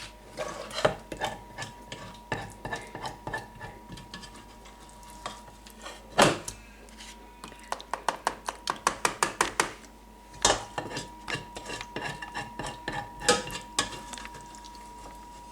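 Kitchen utensils clinking, tapping and scraping against a pot and containers while sauce is spooned out. There is a louder knock about six seconds in, a quick run of taps just after it, and another knock a couple of seconds later. A faint steady high tone runs underneath.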